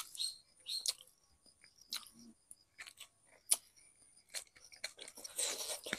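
A person eating with her fingers: scattered wet mouth clicks and lip smacks as she chews, with a longer stretch of noisy chewing about five seconds in.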